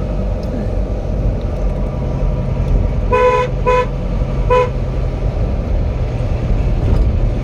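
A vehicle horn gives three short toots in quick succession, starting about three seconds in, over the steady low rumble of a running vehicle.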